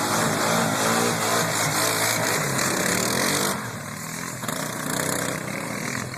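ATV engine running and revving, its pitch rising and falling. It is loudest for the first three and a half seconds, then eases off.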